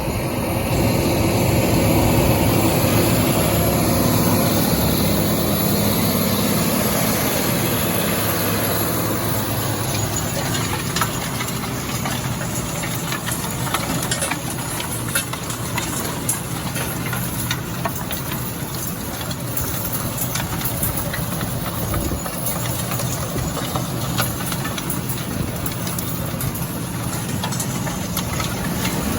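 A vehicle engine running steadily. About ten seconds in, its even hum fades under a rougher rumble with scattered clicks and rattles.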